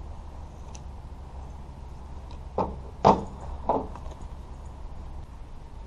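Three short hard knocks in quick succession about halfway through, from parts and tools being handled at the pickup's tailgate, over a steady low rumble.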